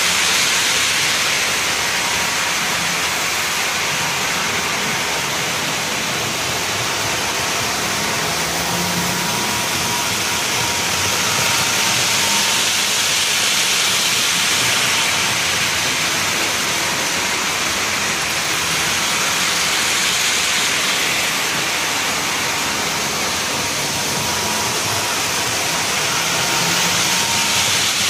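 Steady rushing hiss with a faint steady whine, swelling a little now and then, from model trains rolling on a layout's track.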